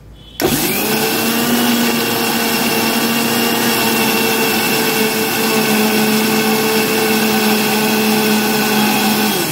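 Usha Colt Plus MG 3772 750 W mixer grinder running on its first speed setting, grinding garlic and a little water into paste in its small stainless-steel jar. The motor spins up about half a second in, holds a steady, fairly loud whir, and switches off near the end.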